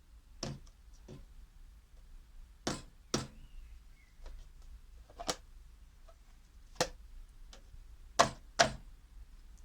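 A hard-faced mallet tapping gasket material against the edge of a metal oil reservoir, cutting the gasket to shape along the edge. About eight separate sharp taps at uneven intervals, the loudest a quick pair near the end.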